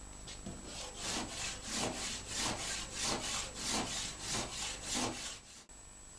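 Hand saw cutting through the wooden planking of a small boat hull in quick back-and-forth strokes, about three a second, sawing out the slot for the centreboard trunk. The sawing stops abruptly a little past five seconds in.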